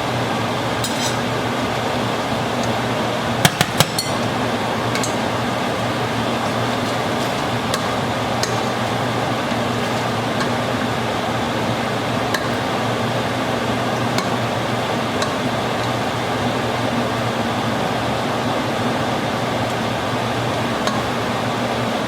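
A metal utensil clinks sharply against a cooking pot three times in quick succession about three and a half seconds in, then taps lightly now and then as pasta is stirred into the pot. A steady hiss runs underneath.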